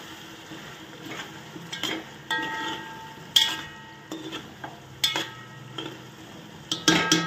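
Metal spoon stirring cauliflower and potato pieces in a metal pot of frying masala, scraping and clinking against the pot about once a second over a low sizzle. A couple of strokes, about two seconds in and near the end, set the pot ringing briefly.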